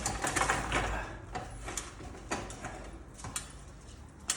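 Light clicks and knocks of small parts and hardware being handled during a lamp installation: a rustling clatter in the first second, then a handful of separate sharp taps.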